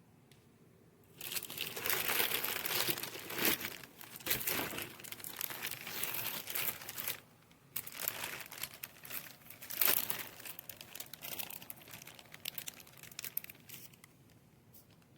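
Irregular crinkling and rustling handling noise. It starts about a second in and pauses briefly a little past halfway.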